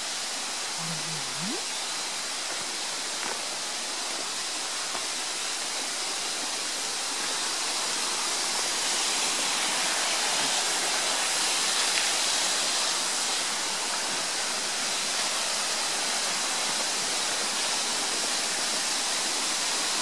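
Waterfall rushing steadily, growing louder about eight seconds in.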